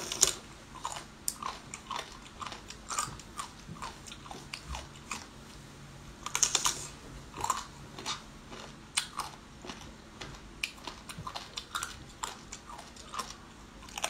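Close-up eating sounds of biting into and chewing crunchy jellyfish: an irregular run of short, crisp crunches, coming thicker about halfway through.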